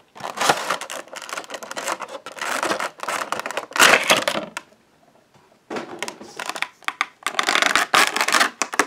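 Clear plastic packaging insert scraping and crinkling against the cardboard as it is slid out of a Funko POP! box, in a run of short bursts, loudest about four seconds in. After a pause of about a second, the thin plastic tray crackles and rubs as the vinyl figure is worked out of it.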